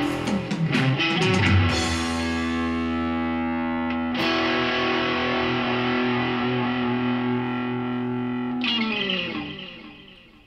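Electric guitar with Carvin alnico pickups playing a quick run of notes, then the song's closing chord: held, struck again about four seconds in, and left to ring until it fades out near the end.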